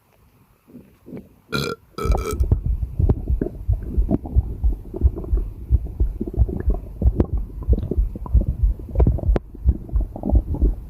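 Active, bloated stomach gurgling: two short squeaky gurgles about a second and a half in, then a continuous run of bubbling, popping digestive rumbles.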